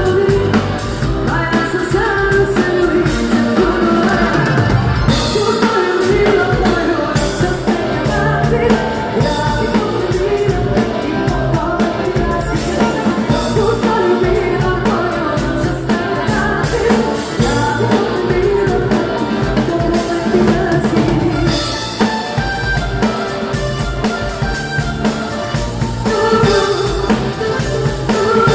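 Live band music heard close to the drum kit: drums and cymbals played under a singing voice, with an electric guitar in the mix.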